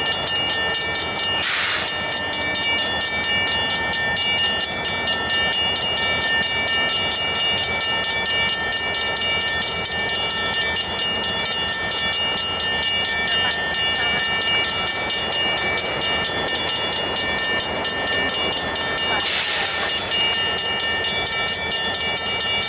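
Railroad crossing bell ringing continuously in rapid, even strokes, with the flashing lights, as the gated crossing warns of an approaching train. Two brief hisses cut across it, one about a second and a half in and one near the end.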